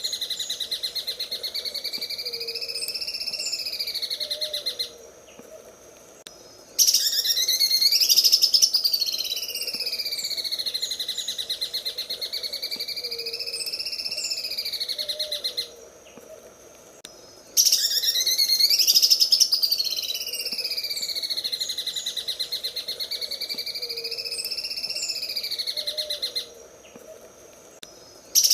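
Greater green leafbird (cucak ijo) singing its 'sewing machine' song: a fast, buzzing rattle that swoops up and down in pitch. The same long phrase repeats about every eleven seconds, each time starting louder and separated from the next by a pause of about two seconds.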